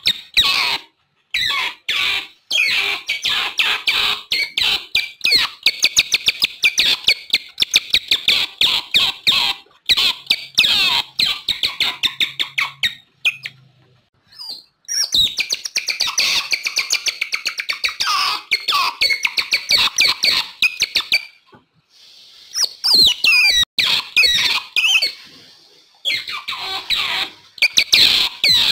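Otters calling: fast runs of short, high-pitched chirps and squeaks, broken by a pause of about two seconds near the middle and a shorter pause later.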